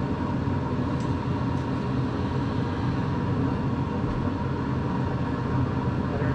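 Rec-Tec pellet grill's combustion fan running steadily with the pellet fire established, a continuous low drone as the grill comes up to temperature.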